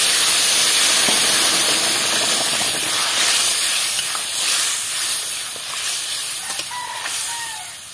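Loud steaming hiss of a taro curry hitting a kadai of hot tempering oil with cumin, radhuni and bay leaves, fading slowly as it settles.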